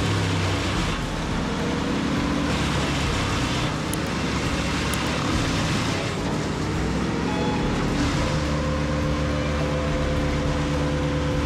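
Wood chipper's engine running steadily, with a rushing noise that swells and fades several times over it; the engine note shifts about eight seconds in.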